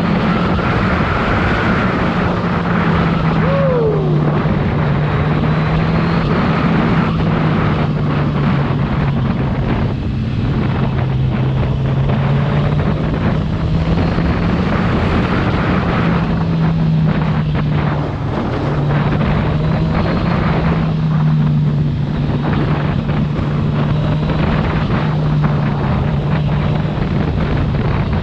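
Kawasaki Z1000R's inline-four engine on its stock exhaust, running at a nearly steady engine speed while cruising, with heavy wind rush over the microphone.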